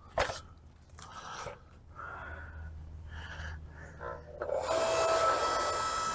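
Firewood being handled: a sharp wooden knock, then several short scraping and rubbing sounds of wood against wood. About four and a half seconds in, a louder steady hiss sets in.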